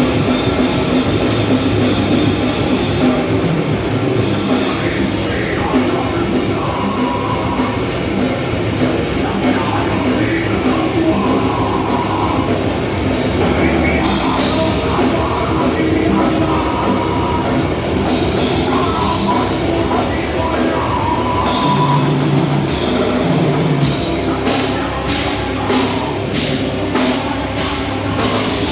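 Loud rock music with a drum kit, with a steady beat of drum hits about twice a second near the end.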